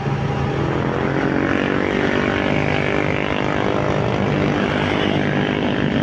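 Motorcycle engine running steadily while riding, heard from the rider's seat with a steady rush of road and wind noise.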